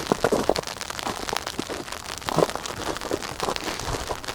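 Sleet and freezing rain striking surfaces close to the microphone: a steady hiss full of small, sharp ticks, with a louder knock at the start and another about two seconds in.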